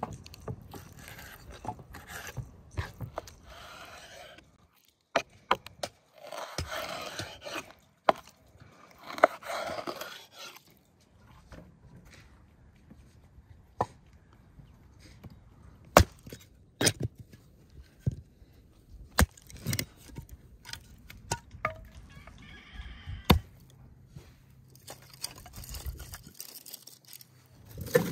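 Firewood being chopped into kindling on a wooden stump: sharp single wood knocks a second or two apart, with handling noise between. Sticks of kindling clatter onto the grill's ash near the end.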